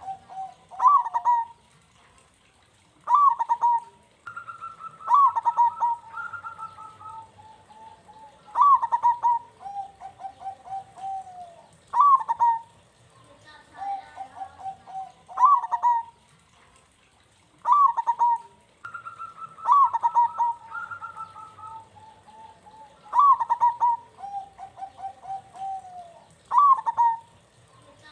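Zebra doves (perkutut) cooing. Each phrase is a short higher opening note followed by a run of quick, lower rolling coos, repeated every two to four seconds. Twice, a second bird's higher coo overlaps a phrase.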